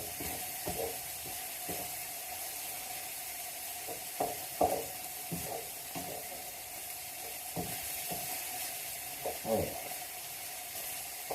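Minced beef sizzling in a frying pan, with scattered scrapes and knocks of a utensil stirring it against the pan.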